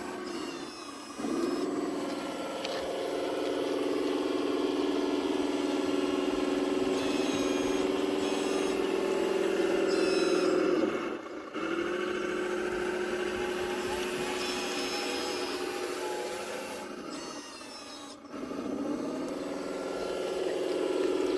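Radio-controlled scale construction machines running: a steady motor whine that dips briefly around the middle and again near the end before resuming, with thin higher whines now and then.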